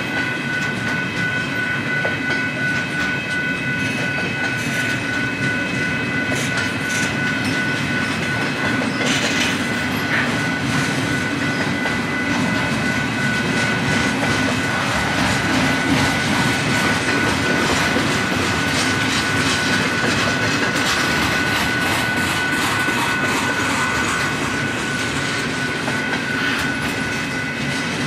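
Double-stack intermodal freight train's well cars rolling steadily past, wheels clacking over the rail joints under a continuous rumble. A steady high-pitched tone runs underneath.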